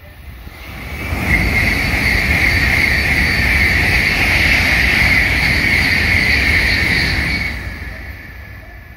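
A Tokaido Shinkansen N700-series train passing at high speed without stopping: a steady rushing roar with a strong hiss. It builds over about a second, holds for about six seconds, then fades away.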